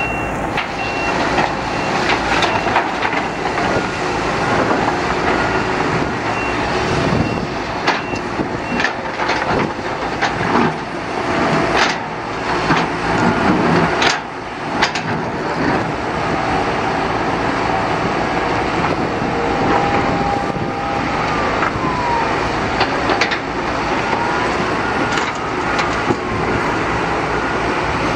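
Heavy earthmoving machinery at work: diesel engines running steadily, with frequent clanks and knocks throughout. A reversing beeper sounds in the first second. In the last third a whine rises and falls repeatedly.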